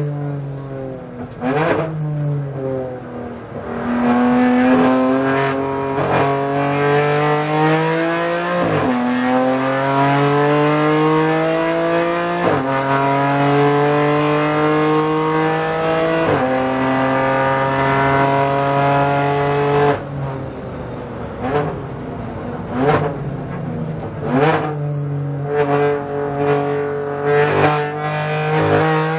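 BMW M4 GT4 race car's twin-turbo straight-six, heard from inside the cockpit, pulling hard along the track, its note rising and falling with the throttle and breaking with a sharp crack at each shift. About two-thirds of the way in it comes off the power under braking, with several short blips as it downshifts to second gear.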